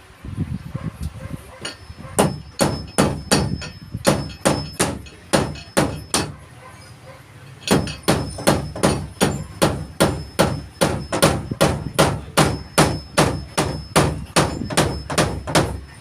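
Hammer driving nails into wood: steady strikes about three a second, a break of about a second and a half near the middle, then a longer run of strikes.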